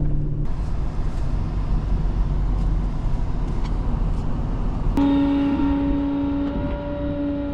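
Flatbed tow truck driving: steady engine and road rumble heard from inside the cab. About five seconds in, the sound changes suddenly to a steady, even hum with several overtones.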